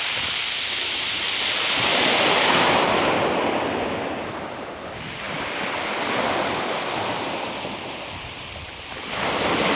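Small waves breaking and washing over a shingle beach, in two swells that build and fade, with wind gusting across the microphone.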